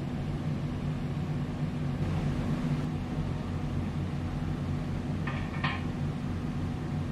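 A steady low engine hum from idling machinery with several constant low pitches, and two short higher-pitched squeaks about five seconds in.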